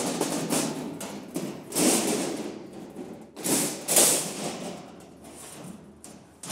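Cut 16-gauge steel sheet pieces scraping and clanking against the slatted bed of a CNC plasma cutting table as they are slid and lifted off, in three or four separate bursts, the last about four seconds in.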